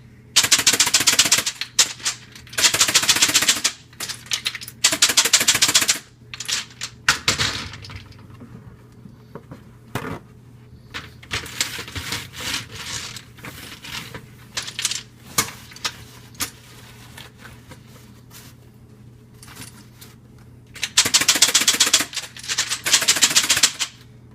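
Wet plastic keyboard case with its keycaps shaken hard to throw out rinse water, the loose keys rattling in loud bursts of rapid clicking, with quieter scattered clicks in between.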